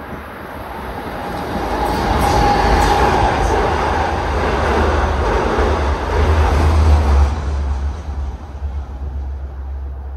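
A double-deck Long Island Rail Road passenger train running past along the station platform: the low rumble and wheel-on-rail noise build up over the first couple of seconds, stay loud for several seconds, then fade as the train goes by.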